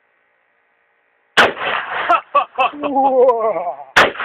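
Two shots from a .50 Beowulf AR-15 rifle with a Quick Discharge muzzle brake, about 2.6 seconds apart. The first comes about a second and a half in and the second near the end, each a sharp, loud crack with a trailing blast.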